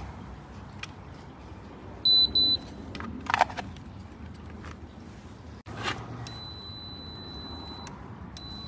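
Electronic beeps from a CENTSYS gate's photoelectric safety-beam system in installer mode. There is a short, loud group of high beeps about two seconds in, then from about six seconds a fainter, fast-pulsing high beep tone, the alignment tone that shows the beams are lined up. A few sharp handling clicks and knocks sit among them, the loudest about three and a half seconds in.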